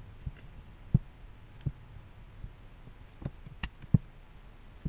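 Irregular soft thumps and a few light clicks as an automatic transmission's aluminium valve body and its small parts are handled and set down on a towel-covered workbench, about seven knocks in all, the loudest about a second in and near the end.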